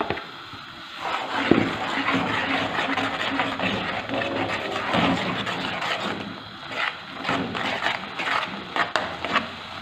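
A spoon stirring and scraping in a saucepan, mashing flour into boiling water to make a thick cooked dough. Many quick scraping and knocking strokes start about a second in and run on without a break.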